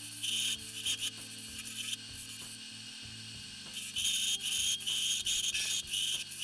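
Wood lathe spinning a wooden handle blank while a turning tool cuts into it, a scraping, hissing cut that comes in repeated bursts as the tool is pushed in and drawn back.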